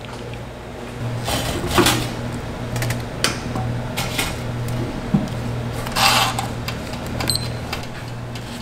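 Clicks and short clatters of equipment and utensils being handled at a café counter, the loudest about 2 s and 6 s in, over a steady low appliance hum.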